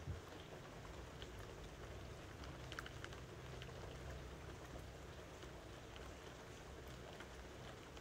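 Steady rain: an even, faint hiss with scattered individual drops ticking, over a low hum. A single soft knock right at the start.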